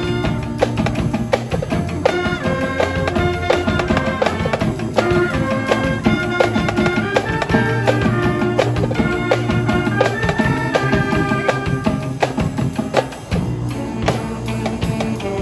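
Live brass band of sousaphones, saxophones and trumpets playing a tune over a drum kit and tenor drums.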